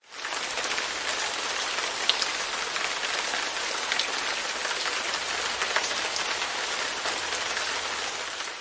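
Light rain falling on a window pane: a steady hiss with scattered sharper drop ticks. It fades in quickly at the start and fades out near the end.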